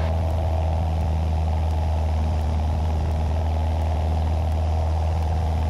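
Cessna 172's piston engine and propeller droning steadily in level flight at constant power, with a deep even hum and a hiss of airflow over it.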